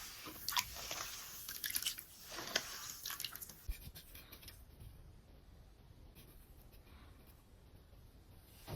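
A block of reformed gym chalk being crumbled: a run of sharp crunches and crackles for the first four seconds or so, then fainter, scattered scratchy crumbling.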